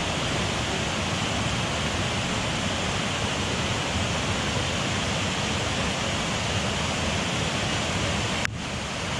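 Waterfall rushing steadily, an even wash of falling water with no break in it. About eight and a half seconds in the sound cuts out for an instant and comes back slightly quieter.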